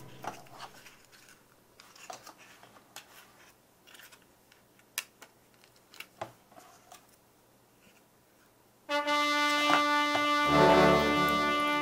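Scattered faint clicks and taps of card papercraft pieces being handled and fitted together. About nine seconds in, background music of steady held chords starts and becomes the loudest sound.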